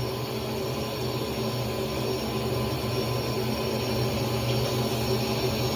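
Faucet water running steadily into a sink as soapy hands are rinsed under the stream.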